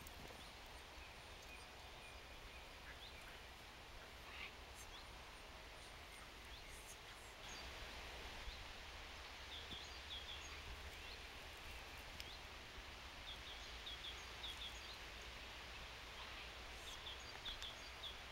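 Faint open-air background noise with a steady low wind rumble on the microphone. A few short, high bird chirps come in small clusters about ten seconds in and again near the end.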